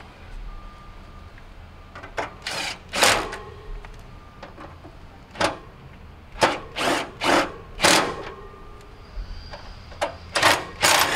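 Cordless drill/driver with a 5/16 nut driver running in short bursts, in several groups, driving the screws that hold the access cover back on a Trane central air conditioner's outdoor unit.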